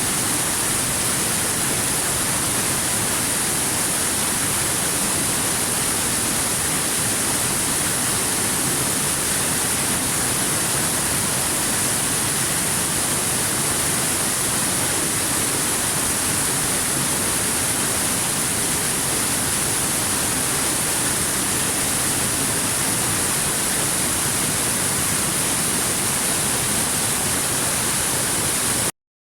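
Waterfall rushing in a steady, even hiss heavy in the high end, dropping out to silence for a moment near the end.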